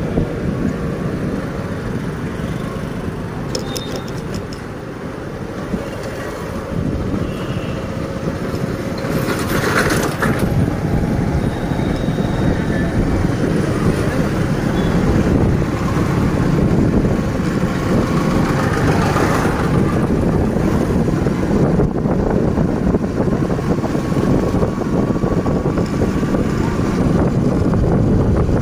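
Steady rumble of a moving road vehicle with wind noise on the microphone, heard during a road ride. Two brief louder swells come about ten and nineteen seconds in.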